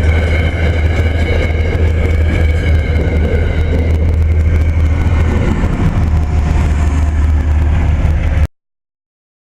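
Intermodal freight train of Maxi-stack well cars rolling past with a steady loud rumble, and a faint high-pitched squeal that fades over the first few seconds. The sound cuts off abruptly about a second before the end.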